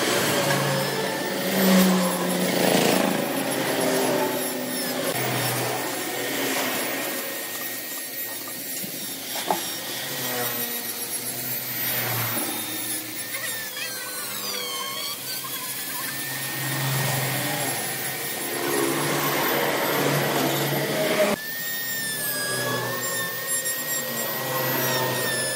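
Power tool working wood, its motor whine shifting in pitch as the load changes.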